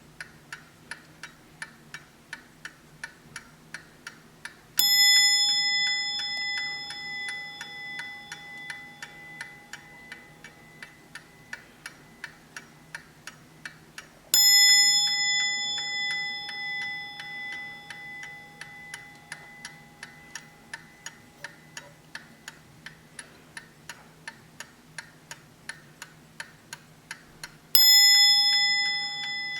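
Hermle skeleton mantel clock ticking steadily. Its bell is struck once about five seconds in, again about fourteen seconds in and again near the end, each strike ringing out and slowly fading.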